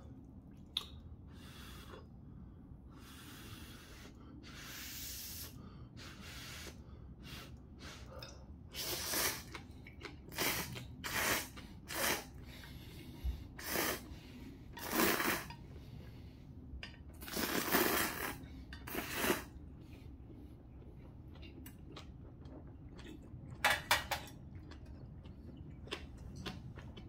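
A person slurping long kalguksu noodles from a hot bowl: a run of noisy sucking slurps, some short and some close to a second long, before chewing a full mouthful.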